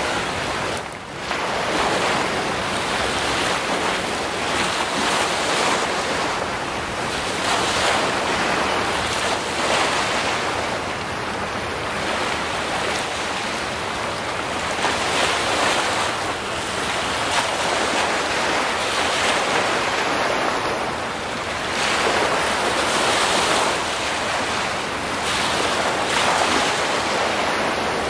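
Wind-driven waves of floodwater breaking and washing onto a paved shore, swelling every few seconds, with wind buffeting the microphone.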